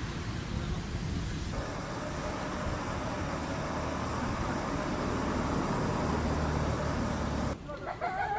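Outdoor background noise: a steady rumble and hiss that swells slowly, then cuts off abruptly near the end.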